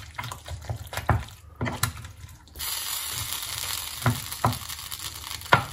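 A spoon stirring thick chicken-and-vegetable filling in a creamy sauce in a stainless steel saucepan, with a few sharp knocks of the spoon against the pan. A steady hiss sets in about halfway through.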